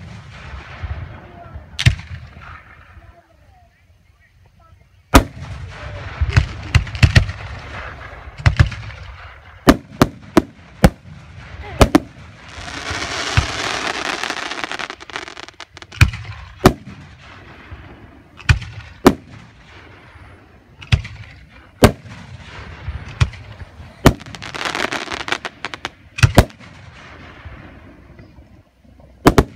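Aerial firework shells bursting in an irregular series of about twenty sharp booms, some in quick clusters. There is a stretch of hissing about halfway through and again near the end.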